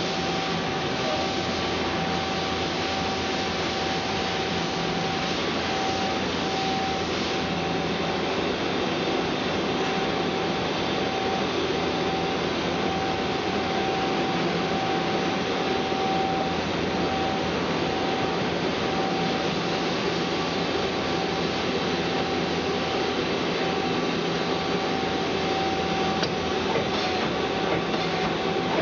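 2006 Mazak QTN-200MS CNC lathe running under power: a steady whine over an even mechanical hum.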